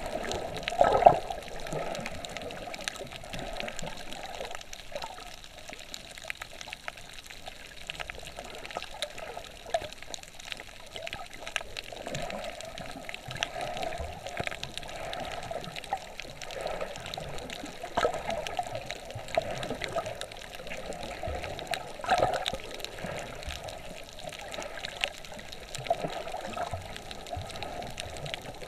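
Underwater sound from a snorkeling camera submerged over a coral reef: continuous muffled water movement and bubbling that swells and fades, with a few louder gurgling surges, one about a second in.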